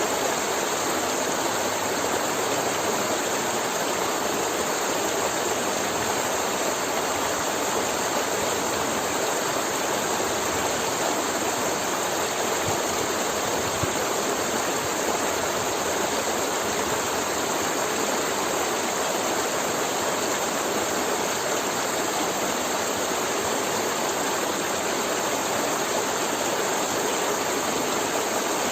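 Forest river flowing over rocks: a steady, even rush and gurgle of water.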